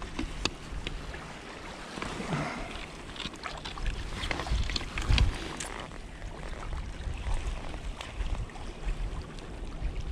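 Water sloshing around a landing net and the wader's legs, with scattered small clicks and splashes as a sea trout is handled in the net, over a gusty low rumble of wind on the microphone.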